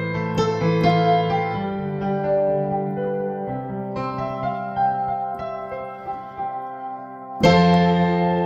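Instrumental keyboard interlude in a slow song: piano-like notes and chords ringing and fading, with a louder full chord coming in near the end.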